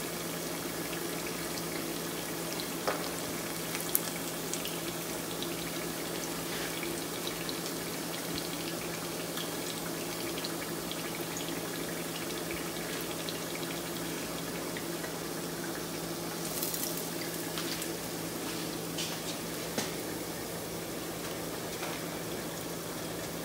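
Catfish pieces deep-frying in hot oil in a cast iron pot: a steady sizzle dotted with small crackles and pops. A few sharp clicks of the metal tongs come through, two of them close together a few seconds in and more later on. A steady low hum runs underneath.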